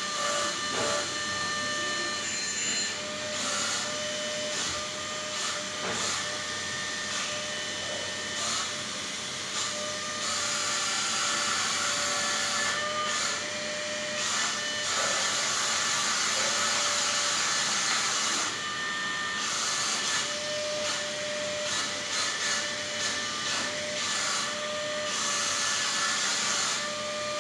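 Wall-climbing RC car's suction fan running in wall mode, a steady high whine over rushing air that holds the car against the wall. The whine shifts and breaks off briefly several times as the car is driven.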